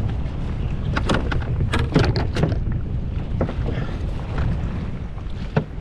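Wind buffeting the microphone aboard a small boat at sea, a steady low rumble, with a cluster of sharp knocks or splashes about one to two and a half seconds in and another one near the end.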